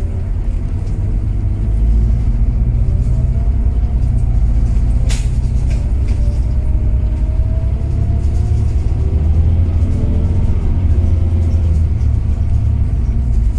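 Bus engine and road rumble heard from inside the cabin as the bus pulls away, a steady low drone. A brief sharp sound cuts through about five seconds in.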